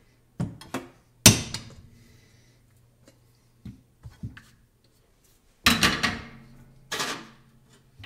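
Metal knocks and clanks of espresso tools being handled: a couple of light clicks, one loud ringing clank about a second in, a few light taps midway, then two heavier clanks near the end as the bottomless portafilter goes into the group head of the ECM Technika V Profi espresso machine.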